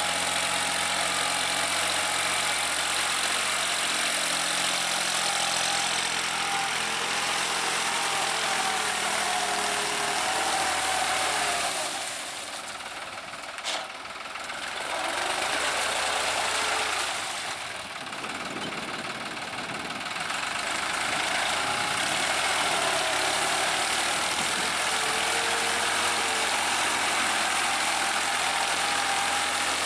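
New Holland TT55 tractor's diesel engine running steadily under load as it drives a rotary tiller through wet paddy mud. The sound drops away twice in the middle, with a single sharp click in the first quieter stretch.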